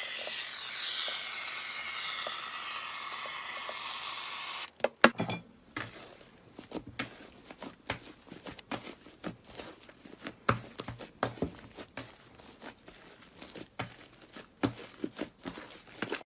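Slime being handled for ASMR: a steady fizzy crackle for the first few seconds, then, after a sudden break, irregular small clicks and sticky pops as it is poked and squished.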